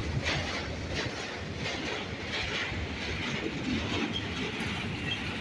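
Freight train cars rolling slowly past, their wheels clacking over rail joints with a steady rumble.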